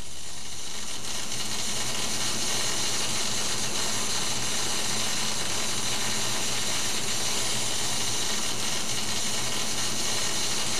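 A steady crackling hiss with a faint low hum under it, unchanging throughout.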